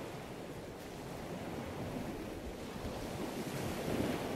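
Steady low rushing noise of air moving across the microphone, swelling slightly near the end.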